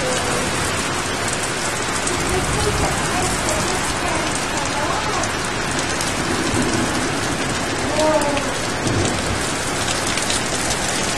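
Rain falling steadily in a thunderstorm wind squall: an even, unbroken hiss.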